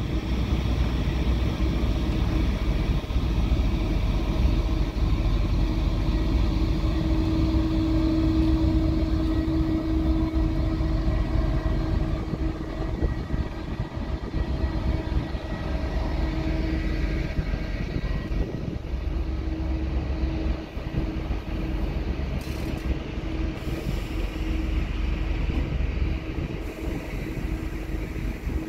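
EP20 electric locomotive hauling a passenger train out at low speed, then its coaches rolling past. Wheels rumble low on the rails under a steady electrical hum that is strongest in the first half and comes and goes later.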